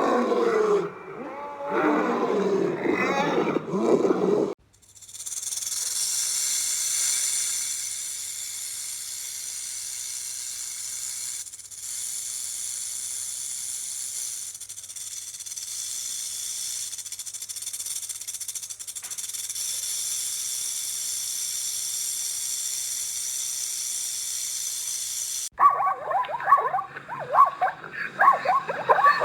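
A large animal roaring and growling for the first few seconds, then a long steady hiss, then a dog barking and yipping rapidly near the end.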